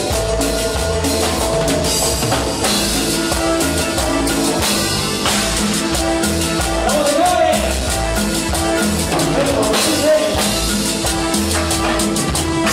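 A live Latin dance band playing a steady rhythm on drum kit and congas, with the scrape of a metal güiro.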